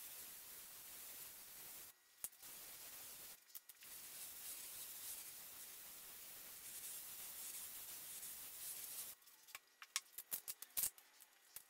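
Gravity-feed air spray gun hissing as it sprays dye onto veg-tan leather, cutting out briefly twice in the first four seconds as the trigger is let off, then stopping about nine seconds in. A quick run of light clicks and taps follows.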